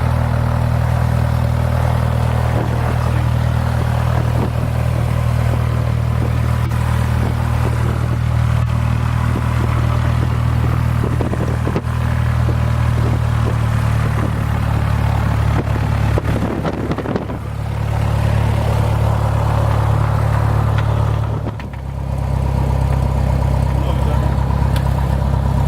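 Cessna 172's piston engine running at low power, heard inside the cabin as a loud, steady drone. The engine note shifts about 17 seconds in and dips briefly about 21 seconds in.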